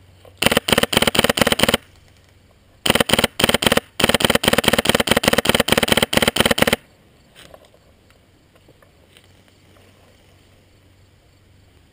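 Polarstar air-powered Magpul M4 airsoft rifle firing rapid bursts: one of about a second and a half, then a few short bursts, then a longer burst of nearly three seconds.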